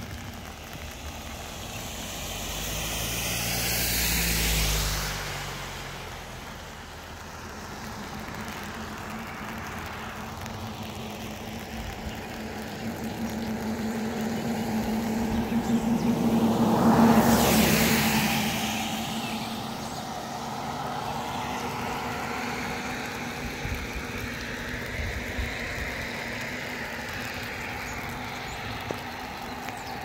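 Two vehicles passing by on a road, each rising and fading: a smaller one about four seconds in and a louder one near the middle. Steady rain hiss underneath.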